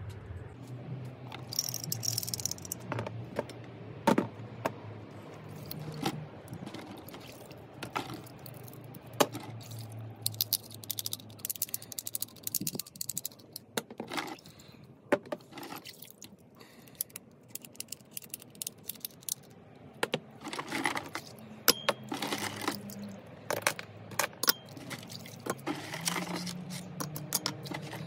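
Small metal bicycle parts (shifters, a brake lever, a front derailleur and headset bearing cups) clinking and rattling in irregular knocks as they are lifted from a bucket of soapy wash water and set down on a bench and in a plastic dish, with now and then a slosh of water.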